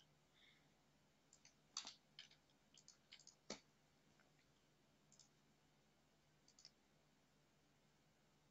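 Faint computer mouse clicks, several in quick succession in the first few seconds and two more spaced out later, over a faint steady low hum.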